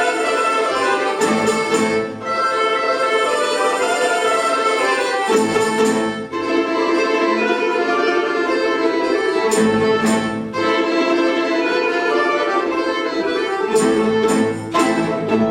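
An orchestra of Russian folk instruments playing a lively ensemble passage, with sustained string melody over a pulsing accompaniment and a few sharp accents.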